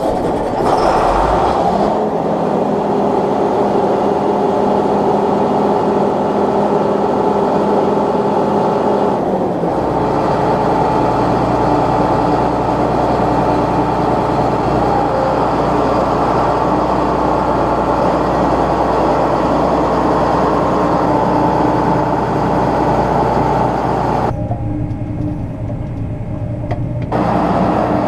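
Combine harvester's diesel engine running steadily with a heavy mechanical drone. Its tone shifts about a third of the way in, and it goes duller for a few seconds near the end.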